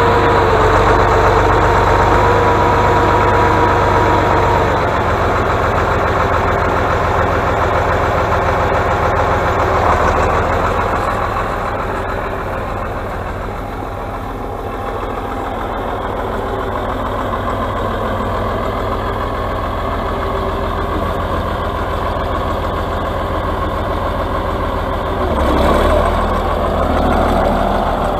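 Diesel engine of an Atlas 1602 wheeled excavator running under load as the machine pushes snow with its front blade, works its boom and drives on. A steady high whine sits over the engine for the first few seconds, and the engine grows louder near the end.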